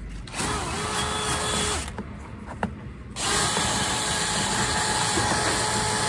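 Power drill spinning a rotary dryer-vent cleaning brush on a flexible rod inside the vent duct. It revs up briefly about half a second in and stops near two seconds. From about three seconds in it runs steadily with a loud rushing, scouring noise as the brush knocks lint and bird-nest debris out of the vent.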